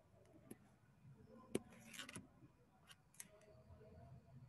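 Near silence with a few faint, sharp clicks from a computer pointing device, spaced irregularly.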